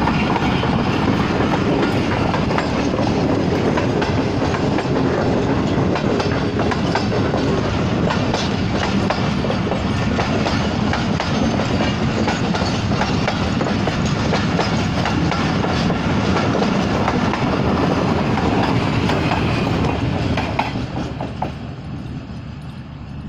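Passenger train coaches passing close at speed, wheels clattering over the rail joints in a steady loud rush. About twenty seconds in, the sound falls away quickly as the last coach draws off.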